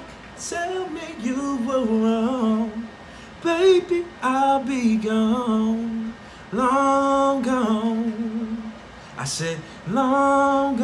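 A man's voice singing long, wordless held notes with vibrato, unaccompanied, in several phrases broken by short pauses.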